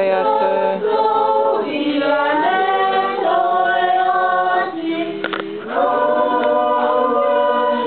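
A group of voices singing a Christmas song unaccompanied, in harmony, with long held notes and a short pause between phrases a little over halfway through.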